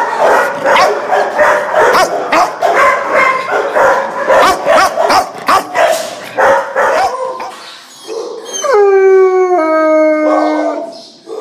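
Many kennelled dogs barking at once in a dense, overlapping din; near the end one dog gives a single long howl of about two seconds that slides down in pitch.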